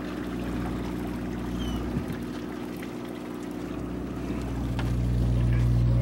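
Sportfishing boat's engine running with a steady low hum, growing louder about five seconds in.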